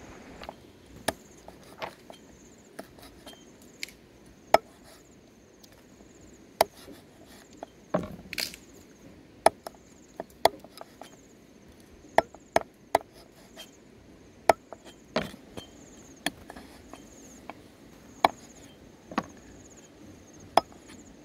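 Meat cleaver chopping the claw tips off raw chicken feet on a wooden chopping board, in a string of sharp, irregular chops, one or two a second.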